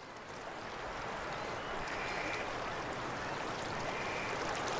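River water flowing, a steady rushing that fades in and grows gradually louder.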